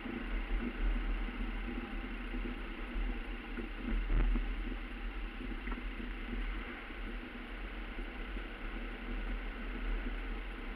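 A car driving on a concrete road, heard from inside the cabin through a dashcam microphone: steady engine and tyre hum, with one thump about four seconds in.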